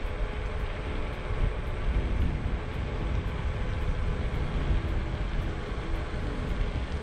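Xiaomi M365 Pro electric scooter being ridden on asphalt: wind buffets the handlebar camera's microphone with a constant, uneven low rumble over the hiss of the tyres on the path, and a faint whine comes and goes.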